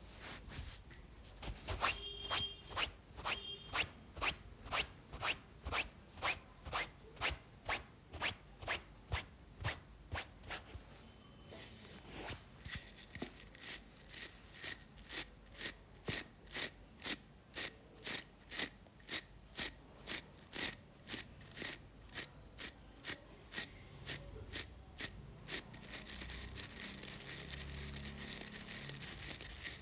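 Rhythmic rustling strokes through hair on the scalp, about two a second, from a pink prong-type head massager being worked over the head. There is a short break about eleven seconds in, and near the end the strokes give way to a steady hissing rub.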